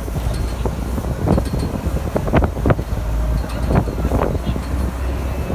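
Wind buffeting the microphone over a steady low rumble of passing vehicles, with several sharp knocks.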